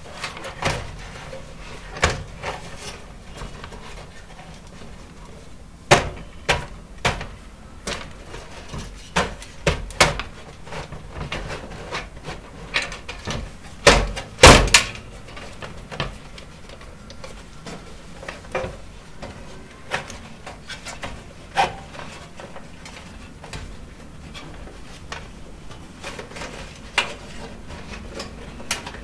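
DVD drive being slid and pushed into a desktop PC case's 5.25-inch drive bay: scattered knocks, clicks and scrapes of the drive against the steel case, with the loudest pair of knocks about halfway through.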